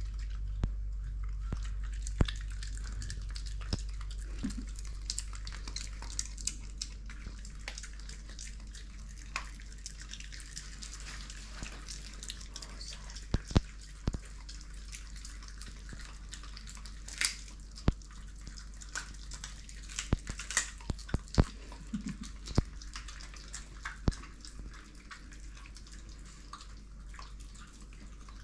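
Two Shiba Inus chewing and tearing at a raw salmon: wet smacking and licking with many scattered sharp clicks and crunches. A steady low hum sits underneath.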